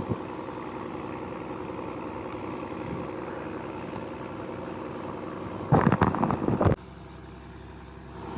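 Small outboard motor idling steadily. About six seconds in, a loud clatter of handling noise lasts about a second, and then the idle goes on more quietly.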